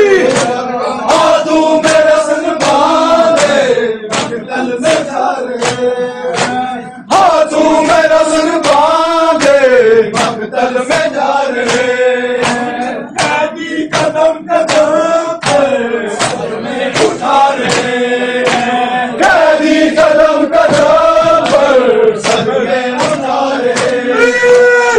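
Men chanting a noha, a Shia lament for Imam Hussain, with a steady beat of open hands striking chests (matam) in time with the chant.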